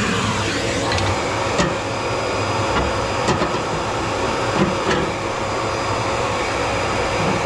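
Light knocks and scrapes of a wood stove's tight-fitting firebrick and baffle being worked loose, a few separate knocks over a steady background hiss.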